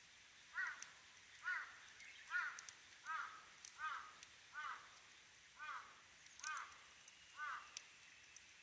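A bird calling over and over, about nine short arched calls roughly one a second, over faint scattered pops and crackles of a wood campfire.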